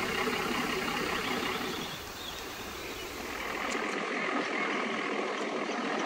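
Late-1970s Nissan truck's diesel engine running as the truck drives slowly along a dirt track, heard from on board. About four seconds in the deep rumble drops away, leaving a thinner, lighter running noise.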